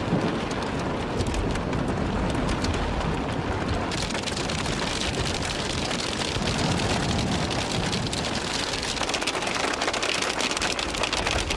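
Heavy storm rain falling hard with wind, a dense hiss of countless fine drop hits that grows sharper and denser about four seconds in.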